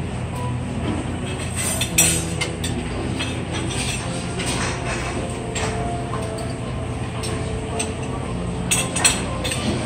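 Buffet restaurant room noise: a steady background din with scattered clinks of dishes and serving utensils, sharpest about two seconds in and again near the end.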